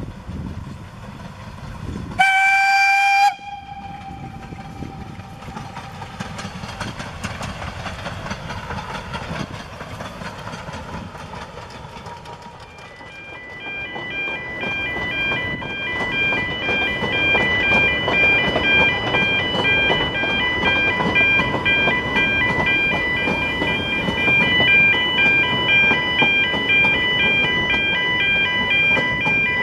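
Narrow-gauge steam locomotive giving one short, loud whistle about two seconds in, then the train running along the track. From about halfway the train sounds louder and closer, with an even, repeating high beeping over it.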